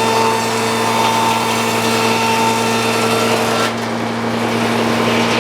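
Frick OO circular sawmill running with its blade cutting an ash log: a steady machine hum under a loud, high cutting hiss. About three and a half seconds in, the high hiss stops suddenly and the mill keeps running.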